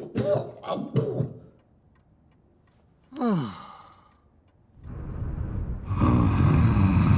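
Short cartoon vocal grunts, then one long falling sigh-like groan about three seconds in. Music swells in over the last couple of seconds.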